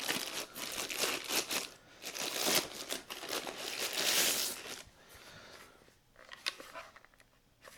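Plastic packaging crinkling and rustling as it is handled and pulled open, busiest over the first few seconds. A few light clicks follow near the end.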